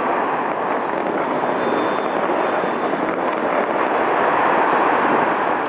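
A fireworks barrage firing continuously, its many bursts merging into one steady crackling rumble that swells slightly near the end.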